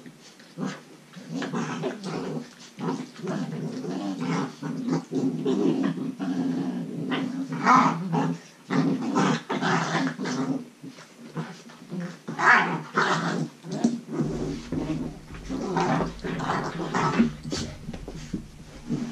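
Belgian Malinois puppies growling as they play, a continuous low growl broken several times by sharper, louder outbursts.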